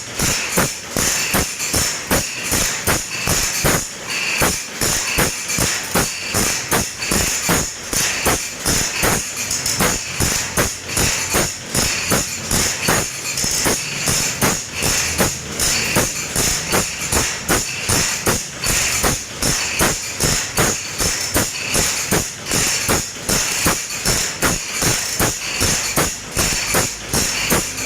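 Steel file rasping across the teeth of a large hand saw in quick, even strokes, about two a second, as the saw is sharpened by hand.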